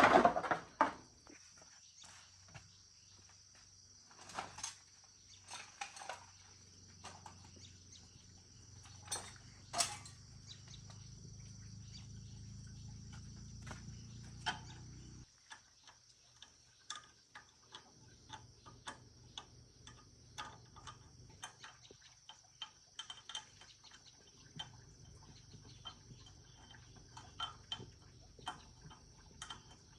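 Insects chirring steadily, with scattered light clicks and knocks. A low hum swells and then cuts off suddenly about halfway through.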